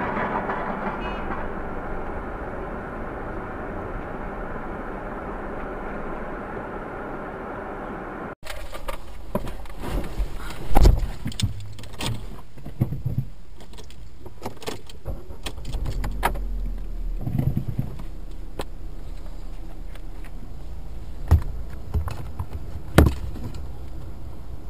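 Car cabin noise from a moving car that cuts off suddenly, followed by the quieter sound of a stationary car with scattered clicks and rattles and a few loud knocks, one near the middle and two close together near the end.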